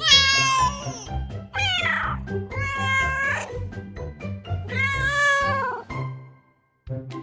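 Kitten meowing four times in high-pitched cries, the second one sliding downward, over background music.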